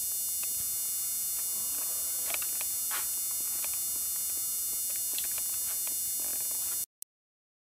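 Steady electrical buzz with a set of high whining tones, the background noise of an old camcorder tape recording, with a few faint short sounds over it. The sound cuts off to dead silence a little before seven seconds in.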